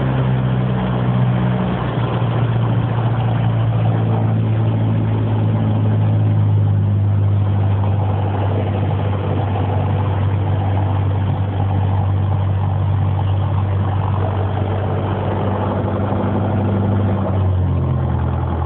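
Light aircraft's piston engine and propeller running with a loud, steady drone; the pitch shifts slightly near the end.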